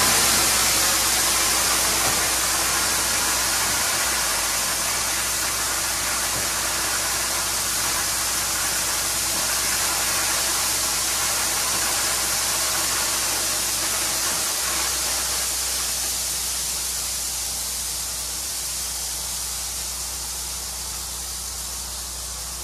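Load of crushed stone sliding out of a tipping dump truck's raised bed onto the ground: a steady rushing hiss that slowly grows quieter as the load runs out, with the truck's engine running steadily underneath.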